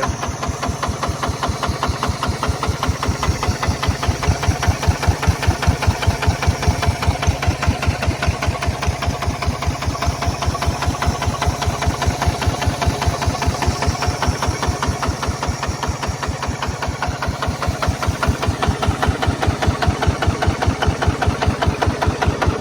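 Kubota RT155 Plus single-cylinder diesel engine running steadily, its firing beats evenly spaced. The level swells a little twice without the rhythm breaking.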